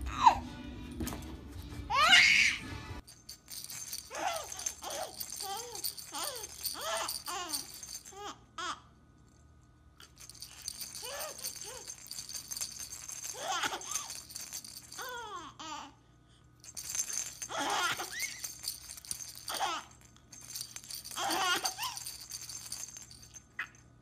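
A baby's toy rattle shaken in four bursts of a few seconds each, with a baby laughing and giggling along with it. The first few seconds are a child's laughter.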